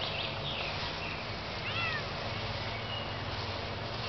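A Bengal cat gives one short meow a little under two seconds in.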